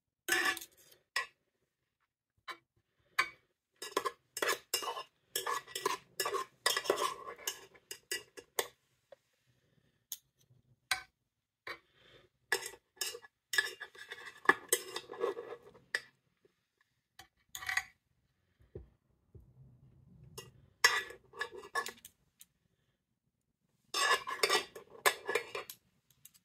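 Metal spoon and fork scraping and clinking against a metal muffin tin as food is scooped out, in irregular bursts with short pauses between them.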